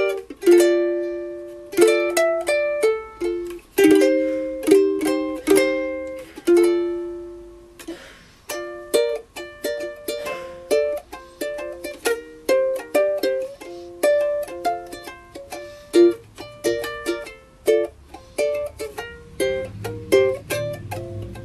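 Snail rosewood soprano ukulele being fingerpicked: for the first several seconds single notes and chords ring out one after another, then from about eight seconds in it turns to a quicker run of picked notes, several a second.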